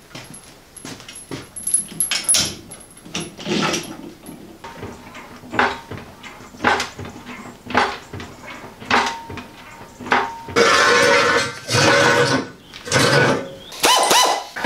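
Metal clanks and knocks of hands-on workshop work with tools, a steel engine crane and vehicle parts, coming one at a time about once a second. About ten seconds in, four louder harsh rattling bursts of about a second each take over.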